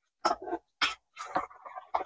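Small metal spoon stirring a thick mix of yogurt and tomato-cashew purée in a bowl, in a few short, irregular strokes, the last one longer.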